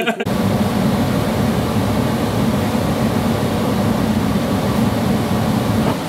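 Goodman 96% gas furnace running: a loud, steady, low rushing rumble of its burners and fans, heard close to the open cabinet.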